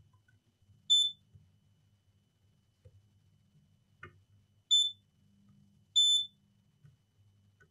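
Digital multimeter in continuity mode giving three short, high-pitched beeps: about a second in, near five seconds and about six seconds in, the last a little longer. Each beep means the probes on the circuit board have found a connected path. A faint click comes just before the second beep.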